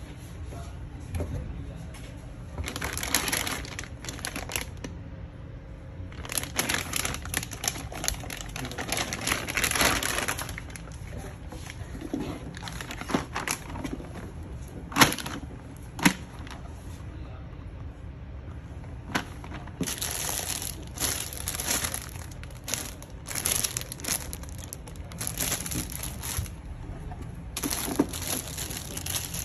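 Plastic packaging crinkling and rustling in irregular bursts as gloves are pulled out of their bags and handled, with a few short sharp knocks around the middle.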